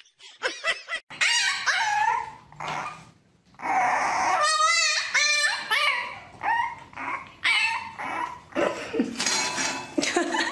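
Dog calling in a string of short pitched whines and yips that bend up and down in pitch, with a quavering call about halfway through.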